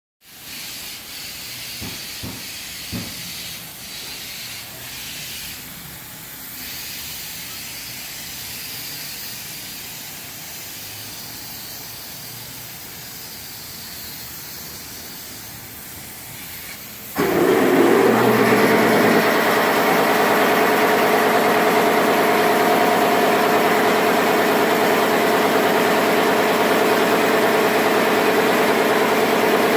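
A faint steady hiss with a few light knocks, then about 17 seconds in a machine starts abruptly and runs steadily, much louder, with a constant hum.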